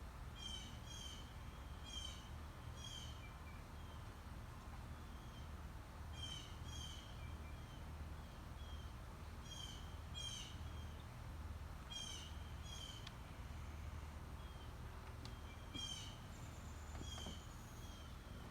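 Backyard birds calling: short repeated notes in quick clusters every second or two, over a steady low hum. A thin high whistle sounds for over a second near the end.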